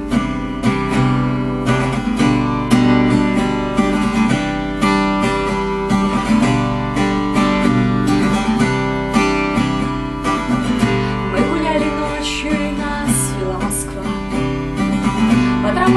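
Acoustic guitar playing the instrumental break of a song, plucked and strummed in a steady rhythm, with a low mains hum beneath.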